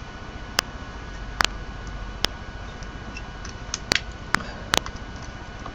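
Six small, sharp clicks and taps spread irregularly across a few seconds, as metal multimeter probe tips are set on wire and breadboard contacts, over a faint steady hum.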